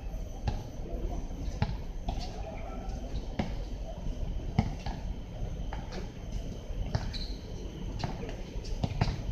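Basketball bouncing on an outdoor hard court as players dribble, sharp bounces about once a second at an uneven pace, over a low steady background rumble.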